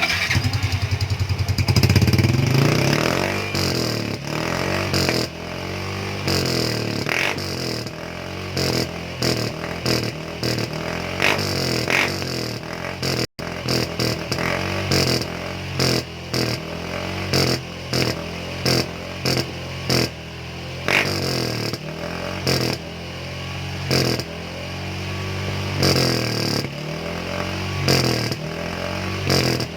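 Yamaha Mio M3 scooter's single-cylinder engine running through a freshly gutted aftermarket exhaust, being tested for its sound: a hard rev right at the start, then an idle broken by repeated short throttle blips about once a second.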